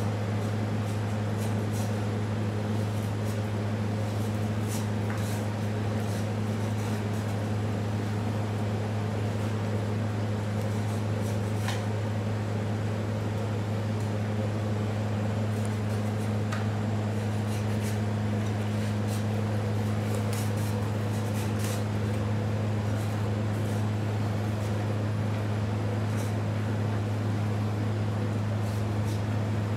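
Steady low machine hum, like a ventilation fan or air-conditioning unit, unchanging throughout. A few faint clicks and scrapes come from a knife cutting through crocodile meat and skin.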